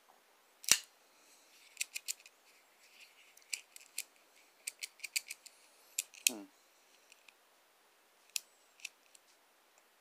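Gerber Highbrow Compact folding pocket knife clicking as it is worked in the hand: one sharp snap about a second in, then a scatter of small metallic clicks from the blade and lock, with two more near the end.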